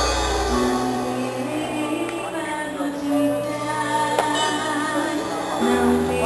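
Worship band playing at a rehearsal: held chords over a bass line, with a voice singing. The bass drops out about half a second in and comes back near the end.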